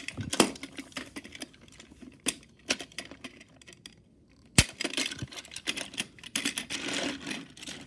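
Irregular clicks and knocks of a plastic Plarail toy train (engine, tender and coach) being handled and pushed together on plastic track, with two sharp knocks, one about half a second in and one about four and a half seconds in.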